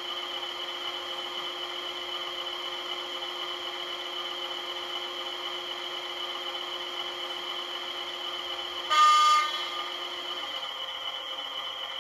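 Sound-fitted model diesel locomotive idling through its small onboard speaker, a steady multi-tone engine hum. About nine seconds in it gives one short, loud horn blast.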